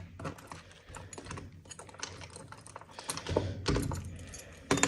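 A quick, irregular run of small clicks and taps, joined by a low rumble about three seconds in, with a sharper knock near the end.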